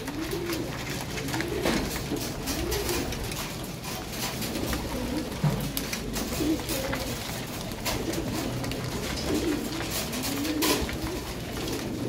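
Racing pigeons cooing again and again, low coos that rise and fall, mixed with frequent small clicks of beaks pecking grain from the feeder.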